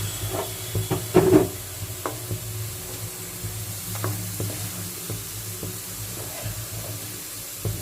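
Hot oil and ghee sizzling in a kadai as golden-brown fried onions are lifted out with a metal spoon, with a few clinks and scrapes of the spoon against the pan, the loudest about a second in.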